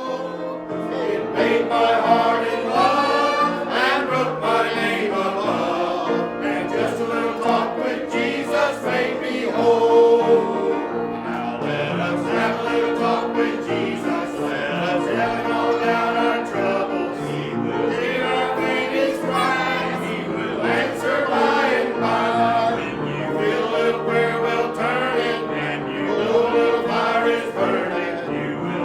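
A church congregation singing a hymn together, many voices at once.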